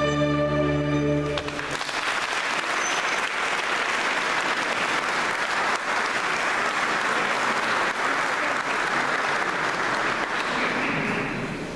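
A choir's final held chord, cut off about a second and a half in, then audience applause that carries on until near the end.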